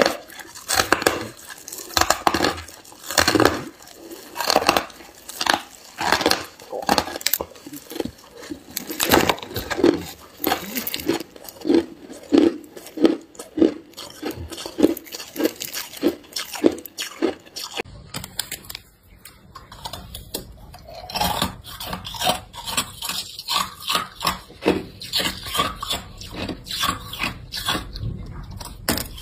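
Chunks of ice being bitten and chewed close to the microphone: loud, sharp crunches about once or twice a second. About eighteen seconds in the crunching gives way to a low hum and quicker, lighter crackling.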